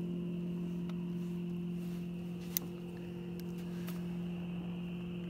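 A boat motor running with a steady, even hum, and a single sharp click about two and a half seconds in.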